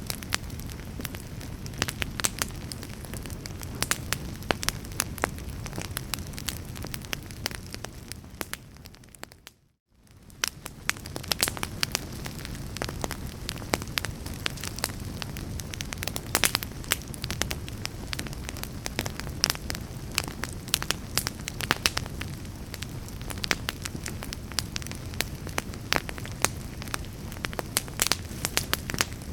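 Fire burning, with many sharp crackles and pops over a steady low rumble. About ten seconds in, the sound fades out to near silence for a moment and then fades back in.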